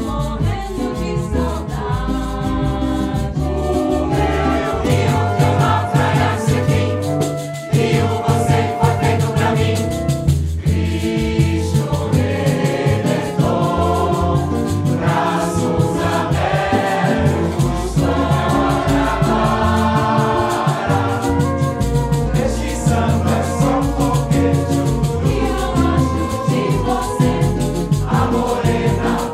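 Large mixed choir singing a Brazilian samba, accompanied by a small ensemble with flute, cello and double bass.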